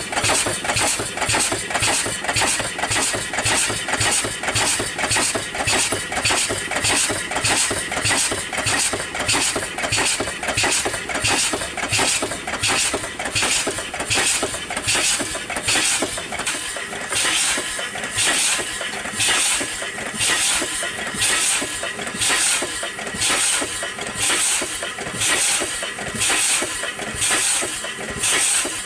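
1880 Payne & Son horizontal steam engine running on steam: a steady, rhythmic chuff of exhaust beats over a constant hiss of steam leaking from the engine's packing gland. A little past the middle the beats slow down, as the engine, which has no governor, loses speed.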